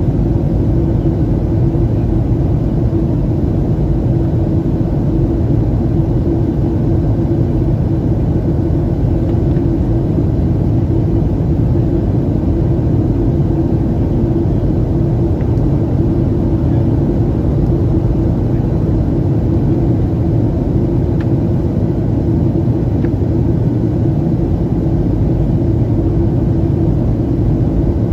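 Steady cabin drone of a Boeing 737-800 airliner in flight: the CFM56 jet engines and rushing airflow heard from a seat inside the cabin, an even deep rumble with a constant hum running through it.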